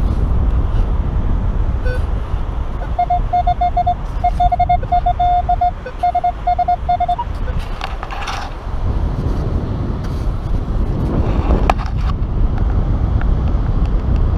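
Minelab Equinox 600 metal detector giving a string of short, high, identical beeps, signalling a target in the dig hole. This is followed by a shovel scraping and digging into wet sand, with one sharp click, over a steady low wind rumble.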